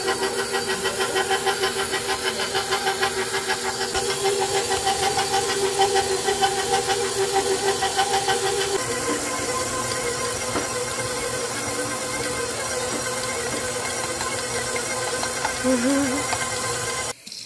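KitchenAid Professional 600 stand mixer running, its flat beater working a thick dough: a steady motor whine with a fast rhythmic pulse. About halfway through the pitch drops slightly, and the sound cuts off suddenly near the end.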